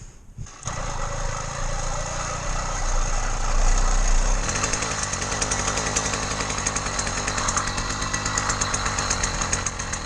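80cc two-stroke motorized bicycle kit engine catching just under a second in, revving, then settling into a fast, steady idle with a rattle as it warms up after a hard start.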